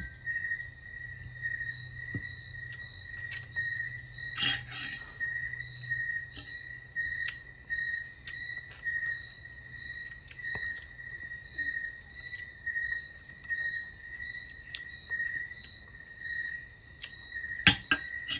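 A cricket chirping steadily in a repeating pulsed trill. Two sharp clicks stand out, one about four seconds in and one near the end.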